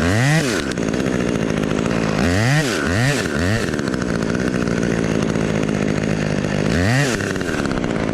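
Chainsaw idling, its throttle blipped in short revs: once at the start, three quick revs in a row about two and a half seconds in, and once more near the end.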